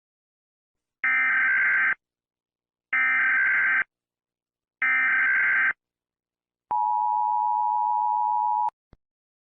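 Emergency Alert System header: three short bursts of buzzy digital data tones, each about a second long with a gap between, marking the start of an emergency alert. Then the two-tone EAS attention signal sounds steadily for about two seconds, stops abruptly, and a faint click follows.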